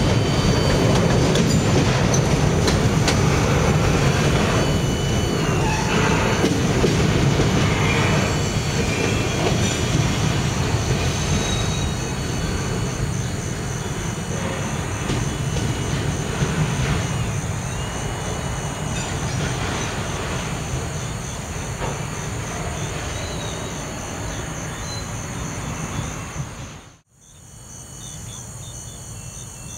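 Freight train of autorack cars rolling past on steel rails, with wheels squealing now and then and the rumble slowly fading as the last cars go by. Near the end the sound cuts out briefly and steady cricket chirring is left.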